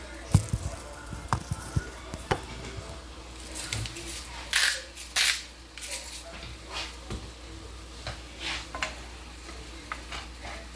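Kitchen handling sounds: a quick run of light clicks and knocks from utensils and containers, then a couple of short scraping rustles and a few more scattered clicks.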